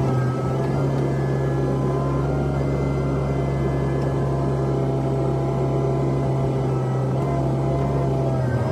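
Komatsu PC128 excavator's diesel engine running steadily, heard inside the cab, with a hydraulic whine that shifts in pitch as the boom and bucket are worked.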